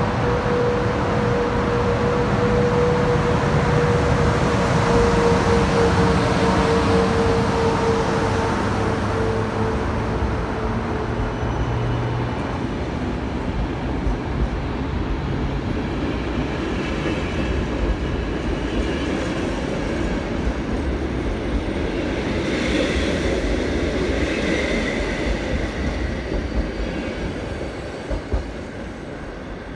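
Polish EP09 electric locomotive pulling out with a train of passenger coaches. A steady tone falls slightly in pitch and fades after about ten seconds. The coaches then roll past with wheel rumble, a few clicks and brief high wheel squeal on the curve over twenty seconds in, and the sound fades near the end.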